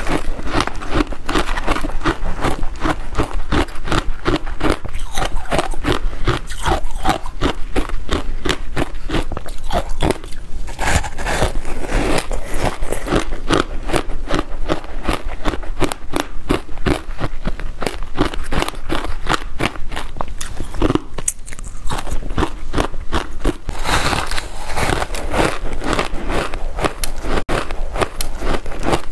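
Frozen passion fruit ice being bitten and chewed, close to the microphone: a dense run of sharp crunches and crackles, several a second, with a short lull about three quarters of the way through.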